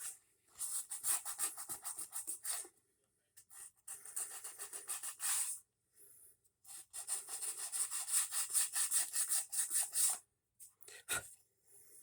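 Hand sanding of a small wooden model roof: quick back-and-forth rasping strokes in three runs with short pauses between, then a single sharp knock near the end.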